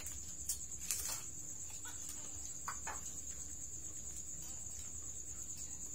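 Crickets chirring in one steady high-pitched band, with a few faint clicks in the first three seconds.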